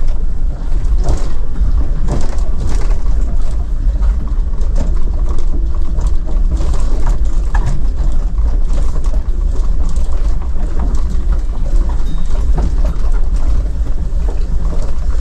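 Vehicle in motion: a loud, steady low rumble of engine and road noise, with scattered knocks and rattles.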